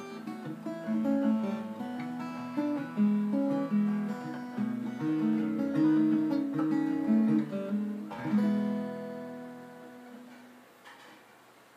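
Acoustic guitar played fingerstyle, a run of picked notes closing on a final chord about eight seconds in that rings out and fades away.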